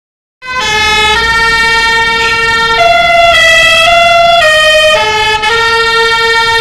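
Telolet basuri musical air horn playing a tune: loud held notes that start about half a second in and step up and down in pitch every half second or so.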